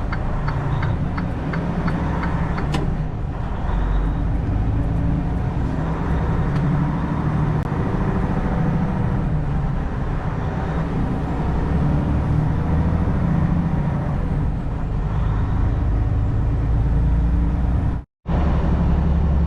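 Semi-truck engine running under load with road noise, heard from inside the cab while driving, a steady drone that drops out abruptly for a moment near the end.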